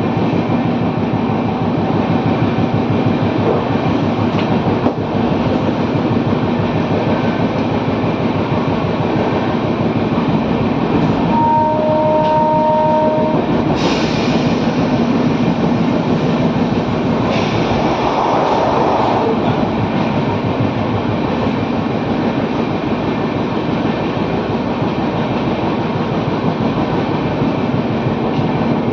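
Mangla Superfast Express train running steadily, a dense rumble with fast rhythmic clatter. About eleven seconds in, a two-tone horn sounds for about two seconds.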